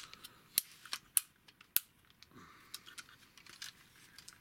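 Hard plastic parts of a Generations Toys Gravity Builder Mixmaster transforming figure clicking and snapping as its arm and torso pieces are pulled out and moved. There are about five sharp clicks in the first two seconds, then lighter ticks and a soft rustle of handling.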